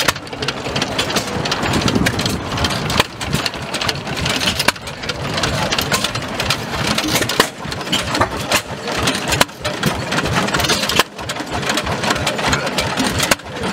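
Several vintage stationary engines running together at once, their firing strokes overlapping into a dense, uneven chugging.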